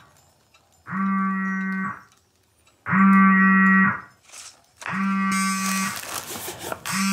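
A smartphone buzzing on vibrate with an incoming call, in repeated one-second buzzes about a second apart. Paper crackles near the end as the gift wrapping is torn open.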